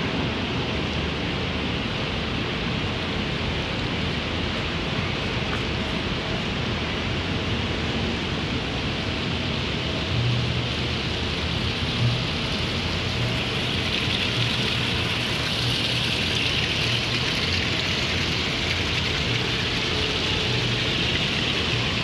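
Fountain water splashing and trickling in a steady rush, growing louder and brighter about two-thirds of the way through, over a low hum.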